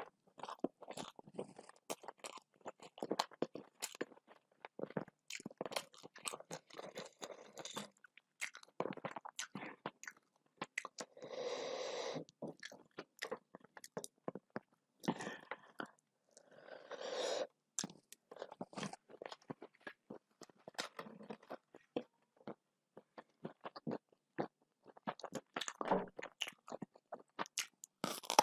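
Close-miked chewing of a hand-fed mouthful of rice and vegetables: many short wet clicks and crunches, with two longer sounds of about a second partway through. Near the end, louder crisp crunches as a slice of raw capsicum is bitten.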